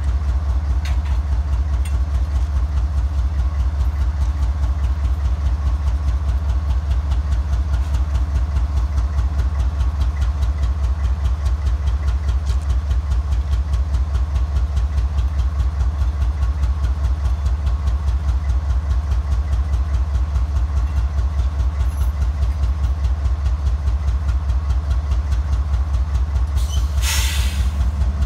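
Norfolk Southern 7583, a GE Evolution-series diesel locomotive, idling with a steady low rumble and a fast even pulse. About a second before the end comes a short, sharp hiss of air.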